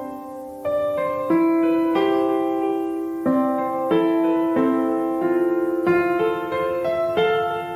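Background music: a gentle piano playing slow notes and chords, each one starting cleanly and fading away before the next.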